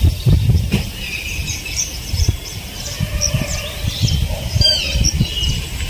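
Birds chirping with short gliding calls, several about four and a half seconds in. Under them, repeated low rumbles on the microphone are the loudest sound.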